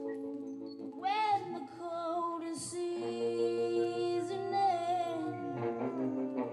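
Live band music: a singer holds long, wavering notes over steady sustained chords.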